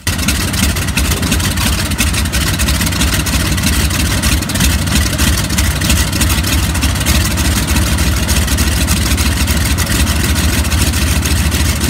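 Radial piston engine of a Beechcraft Staggerwing biplane running steadily at idle just after a cold start, with a deep low rumble and a rapid firing beat. The exhaust is still smoking from the start.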